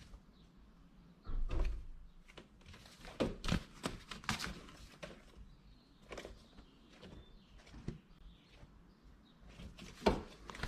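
Scattered clicks and knocks of handling and movement: a heavier low thump about a second in, a cluster of knocks around three to four seconds, and a sharp knock near the end.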